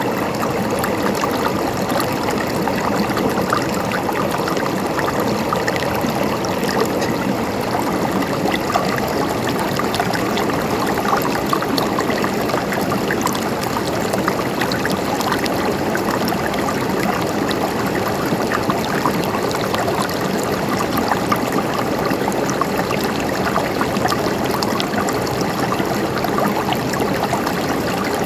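Mountain stream flowing steadily over rocks, a continuous babble of running water with many small splashes and gurgles.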